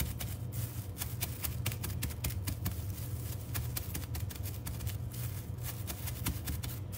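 Green pumpkin seeds (pepitas) in a plastic bag being crushed under the bottom of a bottle on a granite countertop: rapid, irregular crackling and clicking, over a steady low hum.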